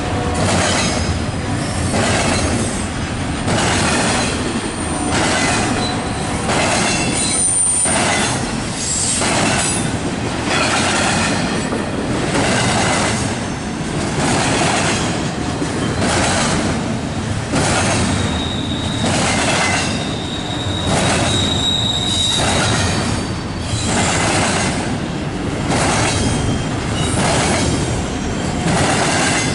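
Double-stack intermodal train's well cars rolling past, a steady rumble and rattle of wheels on rail that swells and eases every couple of seconds as the cars go by. A thin, high wheel squeal sounds briefly about twenty seconds in.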